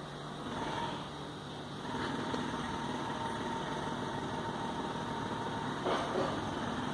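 Steady mechanical hum, with a faint high steady tone joining about two seconds in and a couple of soft knocks near the end.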